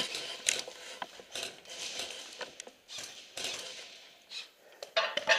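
Irregular mechanical clicks and rattles, with a short, louder cluster of sharp clicks near the end.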